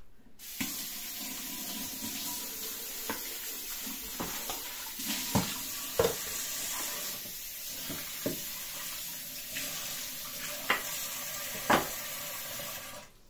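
Kitchen tap running steadily into a sink while vegetables are rinsed under it, with a few short knocks against the sink. The water is shut off abruptly near the end.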